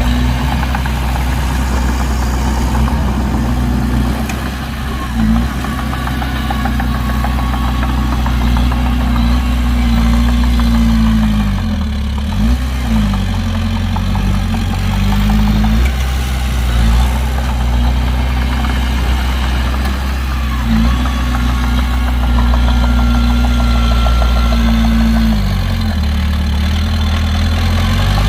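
Heavy construction machine's diesel engine running steadily under load. Its revs dip and climb back twice, once near the middle and once near the end.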